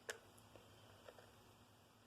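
Near silence: room tone with one faint click just after the start and a couple of soft ticks about a second in.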